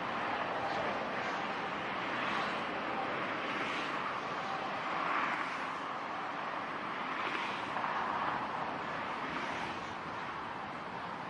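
Gusty wind buffeting the microphone over the steady rushing noise of a twin-engine jet airliner on final approach and landing, swelling and easing every second or two.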